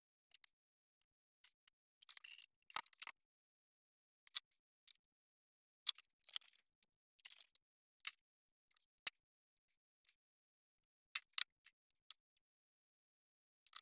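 Scattered small clicks and taps of tools and small parts being handled on a workbench, irregular and sparse with near silence between them.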